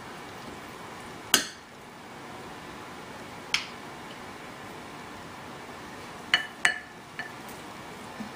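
Serving spoon clinking against a ceramic serving bowl and plate as food is dished out. There are five sharp, ringing clinks: the loudest about a second in, another a couple of seconds later, and three close together near the end.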